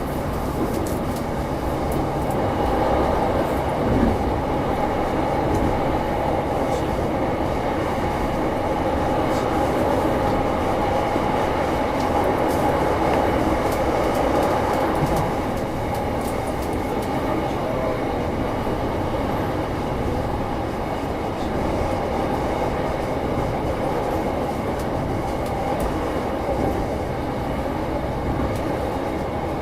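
Running noise of a JR East E233-1000 series electric commuter train heard from inside the passenger car: a steady rumble of wheels on rail with a constant hum, and a single knock about four seconds in.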